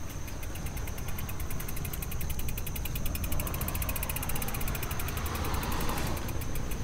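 Thrill Ravage mountain bike rolling over the steel-plate deck of a suspension bridge: a steady low rumble from the knobby tyres on the metal plates, with a rapid, even ticking through the middle of the ride.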